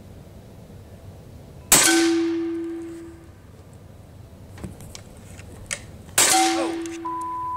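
Steyr LG110 PCP air rifle firing: a sharp crack with a short metallic ring about two seconds in. A second crack and ring of the same kind follows about four and a half seconds later.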